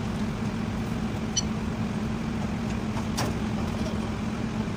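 Steady mechanical drone with a constant low hum, with one short knock about three seconds in during work on a truck's rear dual wheel.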